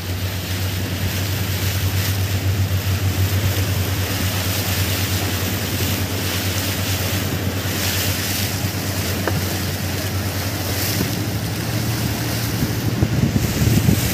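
Fishing boat's engine running steadily at cruising speed, a constant low hum, with water rushing past the hull and wind buffeting the microphone.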